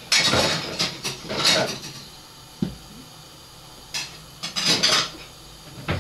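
Washed ceramic plates clattering and clinking as they are stacked into an overhead kitchen cabinet, in several short spells with pauses between.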